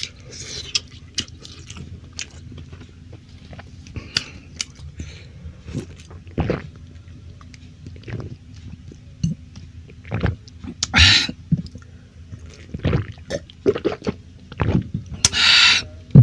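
Close-miked chewing and lip-smacking of a man eating stir-fried beef with rice, with scattered small wet clicks. A few louder noisy bursts come about eleven seconds in and again near the end.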